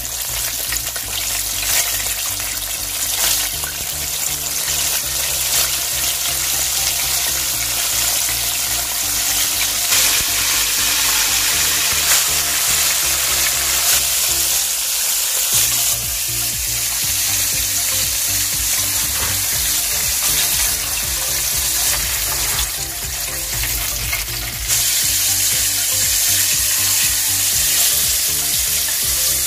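Battered chicken drumsticks deep-frying in hot oil, a steady crackling sizzle, during the second fry at 180°C. Background music plays low underneath.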